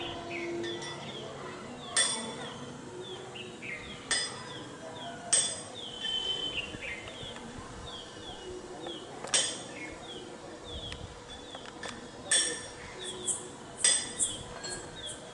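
Birds chirping with many short, quick falling notes, broken by a series of sharp clinking knocks every second or few, which are the loudest sounds.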